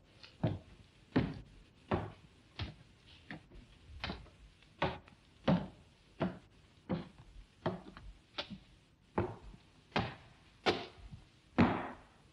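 Slow, even footsteps echoing in a stone interior, about one step every three-quarters of a second.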